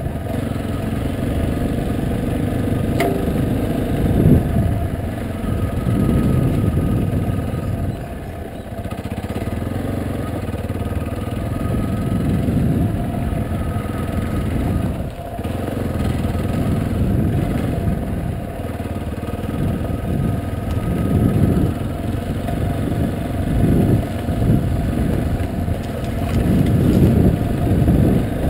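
Yamaha Serow trail bike's single-cylinder four-stroke engine running while ridden off-road on a dirt track. The revs swell and ease off repeatedly as the throttle is opened and closed, with brief dips about eight and fifteen seconds in.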